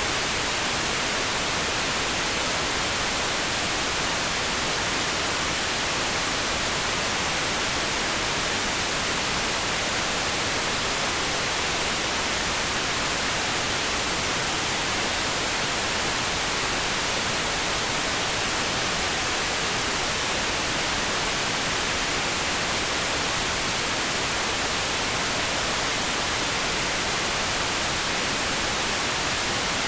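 Generated pink noise: a steady, unchanging hiss with no other sound.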